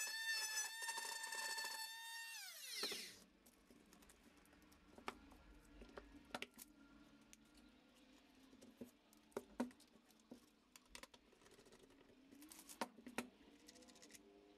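A small high-speed power tool motor running with a steady high whine, then switched off about two seconds in, its pitch falling as it spins down within about a second. After that come scattered light clicks and taps of plastic tool-housing parts and a connector being handled and fitted.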